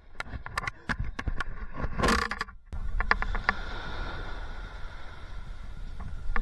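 Small waves washing on a sandy beach, with scattered sharp taps and a short louder swash of water. After a cut the surf goes on as a steadier wash with a few more taps.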